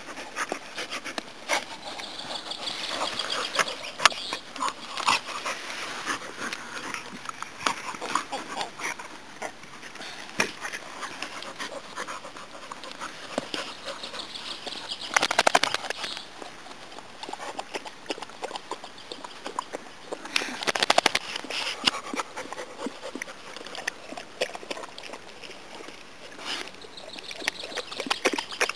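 Two dogs play-wrestling, with panting and irregular short scuffling noises.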